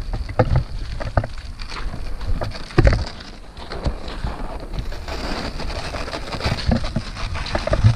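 Strong wind rumbling on the microphone, with rain hissing steadily and a handful of sharp knocks, the loudest about three seconds in.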